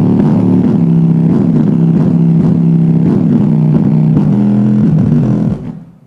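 A song played loudly through a subwoofer in a wooden box, fed by a MYPCB VASP low-pass filter board, so mostly the low bass notes come through. The music stops just before the end.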